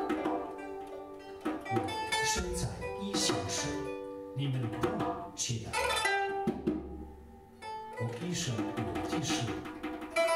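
Pipa playing a melody of separate plucked notes, with hand-percussion strokes.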